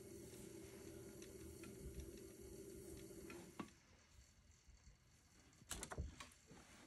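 Electric pottery wheel motor humming faintly as the wheel head spins, then switching off and going quiet about three and a half seconds in. A quick cluster of light clicks and knocks comes near the end.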